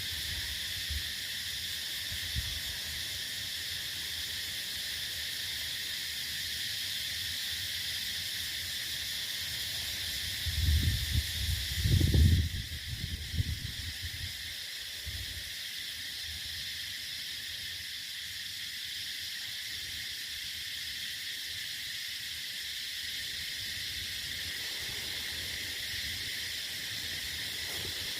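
Spotted dove cooing in short low bursts about ten seconds in, over a steady high chirring of insects.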